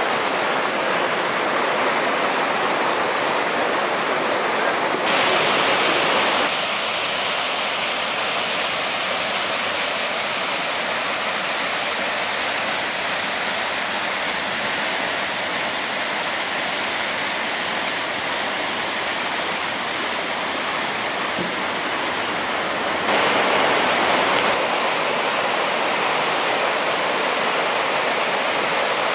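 A muddy flash-flood torrent rushing down a rocky wash: a steady, loud noise of churning water. Its tone shifts abruptly twice for a second or two.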